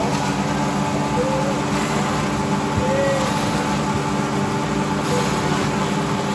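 Several motor-driven grass choppers running together with a steady mechanical hum, chopping fodder grass as it is fed through the cutters.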